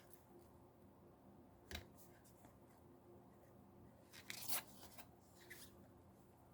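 Oracle cards being handled in a flipthrough: a single soft tap of card stock about two seconds in, then a short flurry of card rustling and sliding a little past the middle, against near silence.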